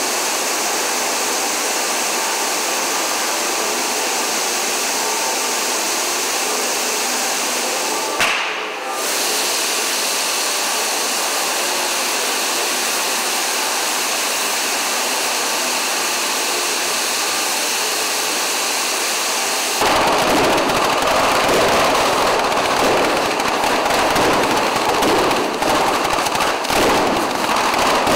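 Fireworks on the Scoppio del Carro cart: fountain fireworks spraying sparks with a steady rushing hiss. About twenty seconds in, a rapid, continuous crackle of firecrackers breaks out and is louder.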